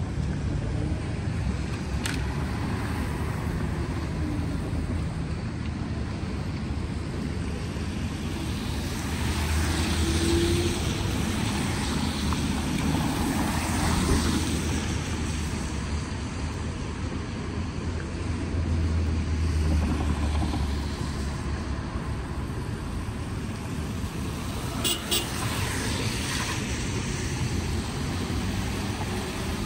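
Traffic passing on a rain-wet street: tyres hiss on the wet pavement and car engines go by, swelling louder a few times as cars pass close. Near the end there is a short horn toot.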